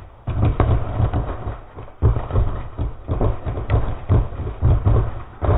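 Fire burning inside a Ford Fiesta's cabin, crackling and popping irregularly over a heavy, uneven low rumble.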